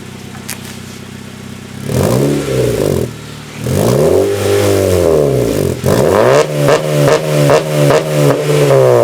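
2014 Honda Civic Si's 2.4-litre four-cylinder idling through a freshly installed Skunk2 RR catback exhaust, then revved. Two longer revs rise and fall about two and four seconds in, followed by a run of short throttle blips about two a second.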